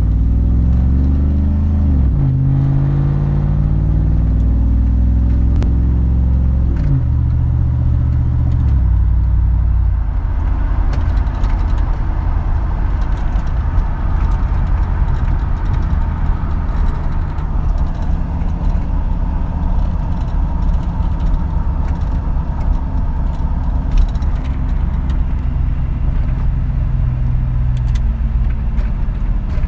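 Engine and straight-through exhaust, with two X-pipes and no resonators, heard from inside the cab while the vehicle accelerates. The engine note climbs and drops with each automatic upshift over the first nine seconds or so, then settles into a steady cruise.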